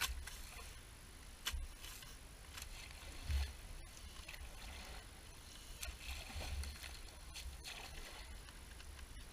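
Wolf-Garten long-reach rake dragged through dead grass and weeds: faint, intermittent rustling and scraping strokes, with a few light knocks.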